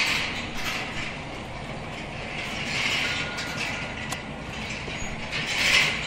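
Overhead chain conveyor of a hanging-basket frying line running, its chain and baskets clattering over a steady hiss. The hiss swells about every three seconds.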